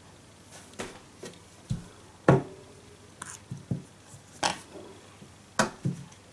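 Plastic glitter glue bottles being picked up and set down on a table: a series of about ten light knocks and taps, the loudest about two seconds in.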